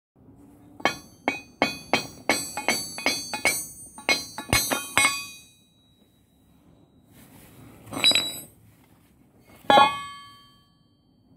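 Steel railway rail struck repeatedly with a hammer: about a dozen quick, ringing metal blows over four seconds, then two more single clanks, the last one ringing on.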